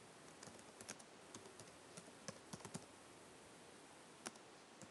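Typing on a computer keyboard: faint key clicks in quick, uneven runs, with a pause of about a second near the end.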